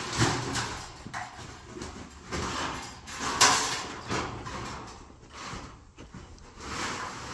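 A corrugated metal sheet being handled and set upright, rattling and scraping in irregular bursts, loudest about three and a half seconds in.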